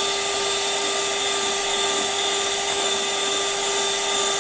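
Electric hand mixer running at a steady speed, its motor humming and whining as the beaters whisk eggs and sugar in a steel bowl into a froth.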